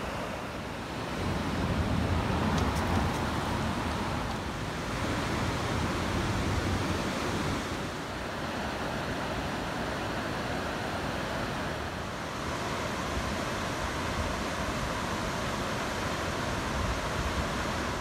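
Gusty wind buffeting the microphone over a steady rush of water from the typhoon-swollen river. The gusts are strongest for several seconds early on, then ease to a more even roar.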